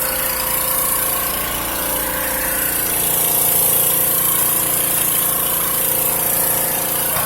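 Hydro jetter drain-cleaning machine running steadily, its motor and high-pressure water pump droning without a break under a steady hiss.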